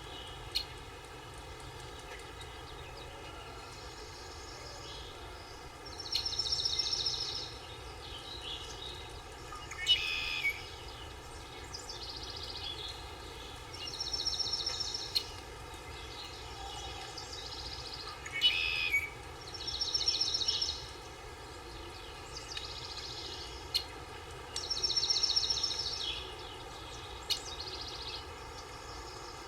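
Woodland ambience: a songbird repeats a high trilled phrase of about a second and a half every four to six seconds, with a few short, sharp calls that fall in pitch, over a steady background of insect buzz.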